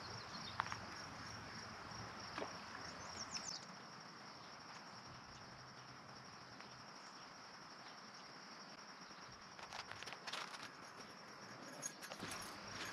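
Quiet outdoor ambience: a steady high insect trill for the first three and a half seconds, then a faint even background, with light footsteps and rustling in the brush near the end.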